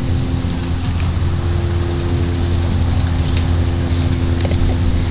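Steady low machine hum, holding the same pitch and level throughout.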